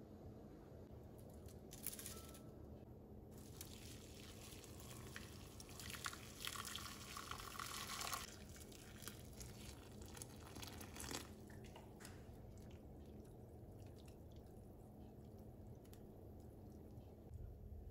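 Water pouring or running in a kitchen in a few stretches, the longest and loudest about 3 to 8 seconds in. Faint drips follow.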